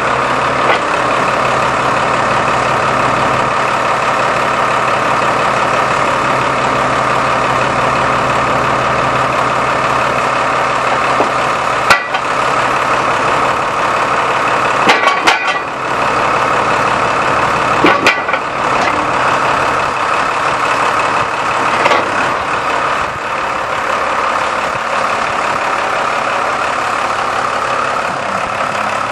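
A 5.9-litre six-cylinder Cummins turbo diesel running steadily at idle, with a few sharp knocks about twelve, fifteen, eighteen and twenty-two seconds in.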